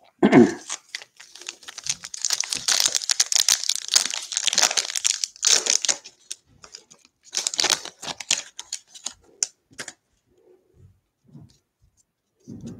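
Foil wrapper of a baseball card pack being torn open and crinkled, a dense crackling from about half a second in to about six seconds, with more crinkling from about seven to nine and a half seconds, then only a few faint handling sounds.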